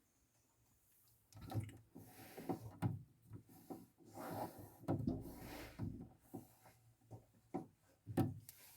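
Irregular rubbing, scraping and knocking of objects being handled and shifted, with a few sharp knocks near the end.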